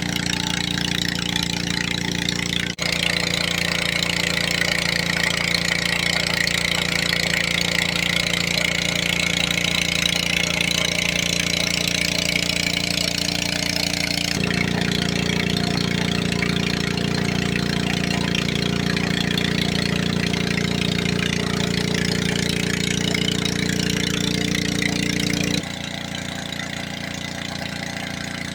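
Small petrol engine of a portable water pump (mesin alkon) running steadily at constant speed. Its tone shifts abruptly about three, fourteen and twenty-six seconds in, and after the last change it is quieter.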